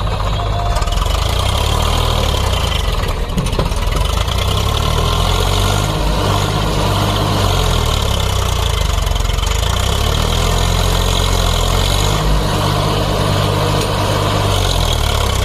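Swaraj 744 FE tractor's three-cylinder diesel engine running loud and steady close up.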